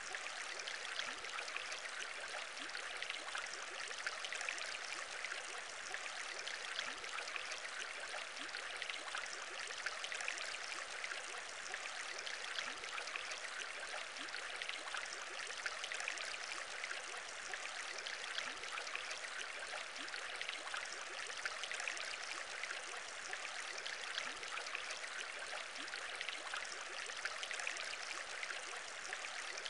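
Aquarium bubbling: a steady, dense stream of many small bubbles popping and trickling, without pauses or changes.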